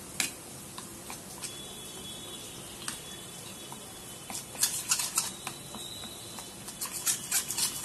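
Steel spoon beating yogurt and spice powders in a small stainless steel bowl: scattered clicks of the spoon against the bowl, coming in quicker bunches about halfway through and again near the end.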